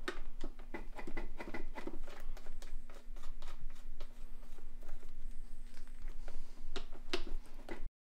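A run of light clicks, taps and rattles from hands working on the bike, with a faint steady hum through the middle; the sound cuts off suddenly near the end.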